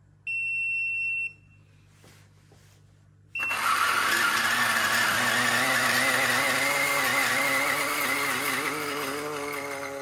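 An electric coffee grinder. A one-second electronic beep comes first; about three seconds in, its motor starts grinding coffee beans into the portafilter. It runs steadily and eases off near the end.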